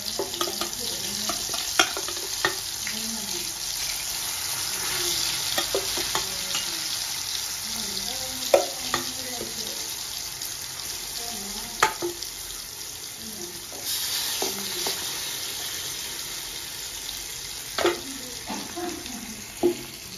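Masala-coated sardines frying in hot oil with curry leaves, giving a steady sizzle. A few sharp knocks of a utensil sound against the pan. The sizzle grows quieter over the last few seconds.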